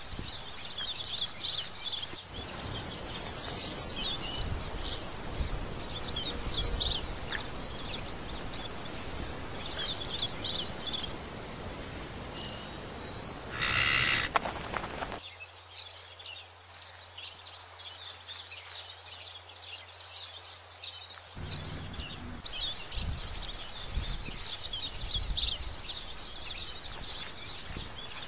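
Birds chirping continually, with five loud, shrill calls made of rapid pulses, coming every two to three seconds over the first half.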